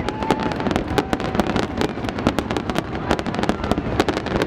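Fireworks display: a dense, unbroken barrage of overlapping bangs and crackles, several every second.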